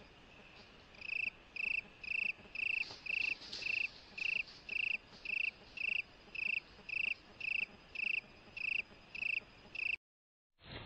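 An insect chirping in a steady rhythm, about two high-pitched chirps a second, becoming loud about a second in and stopping abruptly near the end.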